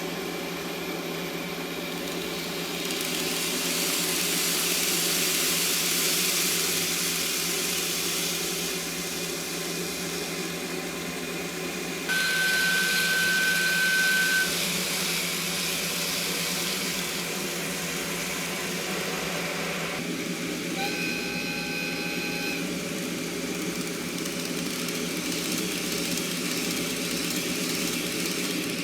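A model-railway sound box playing a DD51 diesel locomotive's engine running over a steady hiss and hum, sounded through a small speaker. The locomotive horn sounds twice: a plain two-second blast about 12 seconds in, and a fuller blast of a few seconds about 21 seconds in.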